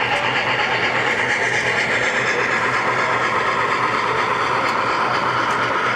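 O gauge three-rail model trains running on the layout's track, a steady rolling rumble of wheels on rail.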